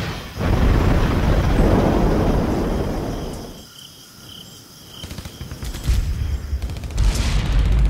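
Rocket launch roar from a missile taking off: a rush that swells about half a second in and fades out after about three seconds. A rumbling, crackling explosion follows as the missile strikes, building from about five seconds in and loudest near the end.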